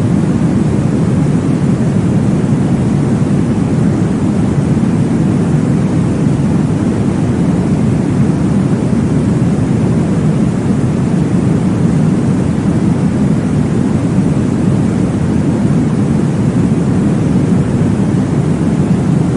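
Continuous deep whooshing noise for baby sleep, weighted low like a rumble, with no pauses or changes.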